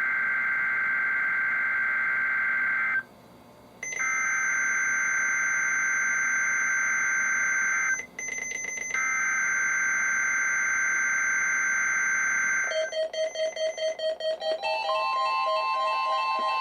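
NOAA Weather Radio SAME header: three bursts of steady data tones, each about three to four seconds long with a roughly one-second pause between them, heard through a weather radio's speaker for the Required Weekly Test. About 13 seconds in, several weather radios start their alert beeps, rapid pulsing tones at different pitches overlapping one another.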